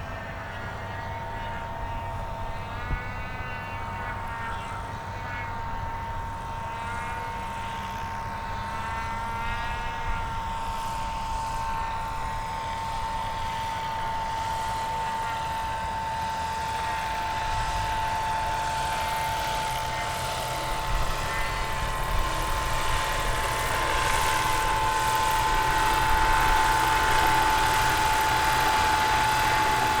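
Radio-controlled model aircraft in flight, its motor giving a steady high whine that slowly grows louder.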